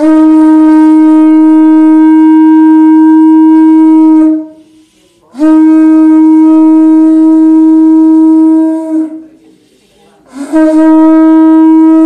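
Triton shell trumpet (brogna) blown as a horn: three long blasts on one steady note, each sliding up into pitch at the start, with a pause of about a second between blasts.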